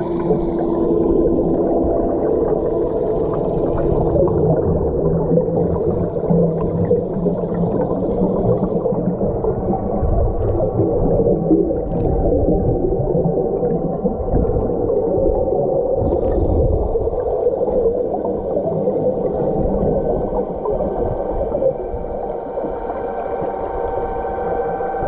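Underwater sound from a submerged camera while free diving in a spring: muffled rushing and gurgling of water with a steady droning hum underneath.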